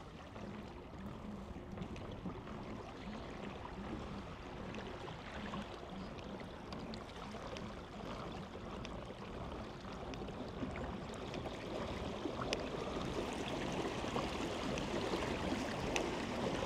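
Water rushing and gurgling around a pedal kayak moving with a fast river current, growing louder toward the end, with a faint regular low pulse in the first half.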